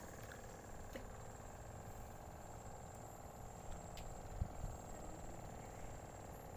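Faint, steady drone of a small engine running, over an irregular low rumble, with a couple of light knocks about a second in and near four seconds.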